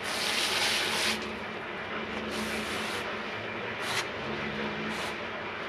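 Garden hose spraying water in bursts: a hiss of about a second at the start, then shorter bursts a few times, over a low steady hum.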